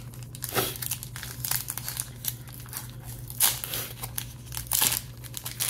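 Foil wrapper of a Pokémon trading card booster pack crinkling and tearing as it is worked open by hand, in a run of irregular sharp crackles, loudest a little after three seconds in and again near the end.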